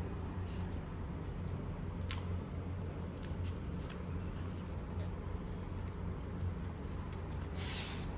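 Packaging handled by hand: scattered small clicks and rustles, with a longer crinkling rustle near the end, over a steady low hum.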